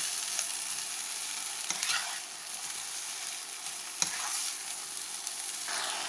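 Cabbage, carrots and onions with sliced pork sizzling in oil in a nonstick wok while a wooden spatula stir-fries them, with a steady hiss and a couple of knocks of the spatula against the pan.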